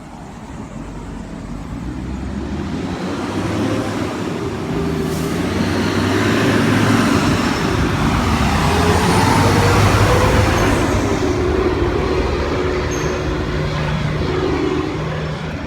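A heavy road vehicle passing close, its engine and tyres growing louder for about ten seconds and then easing off a little.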